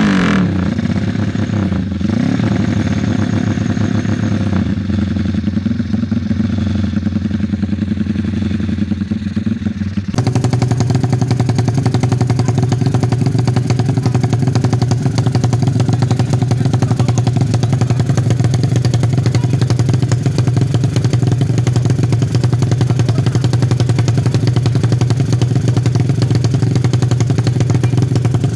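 Honda MegaPro's single-cylinder engine running through an aftermarket BSS stainless exhaust, settling back from a rev with one brief blip of the throttle, then running steadily. About ten seconds in, a different motorcycle engine, a race bike on a stand with an open aftermarket exhaust, takes over, running steadily and louder.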